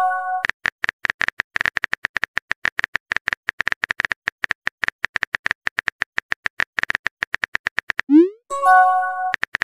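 Chat-app sound effects: a long, rapid run of short keyboard typing clicks as a message is typed. It is framed by a short chiming tone at the start and, near the end, a quick rising pop followed by another chime as a message bubble appears.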